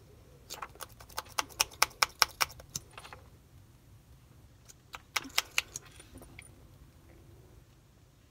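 Quick small clicks of a liquid eyeshadow applicator wand tapping and scraping against the neck of its tube: a run of about fifteen for two and a half seconds, then a shorter run about five seconds in.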